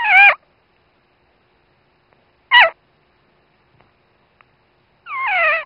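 Newborn dachshund puppy squeaking and crying: a cry that trails off just after the start, a short falling squeak about two and a half seconds in, and a longer cry that slides down in pitch near the end.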